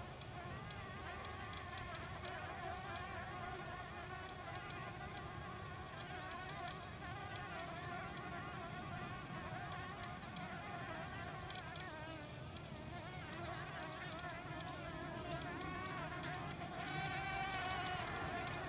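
Several green-eyed flower bees buzzing in flight, their pitches overlapping and wavering. One buzz grows louder near the end as a bee flies close.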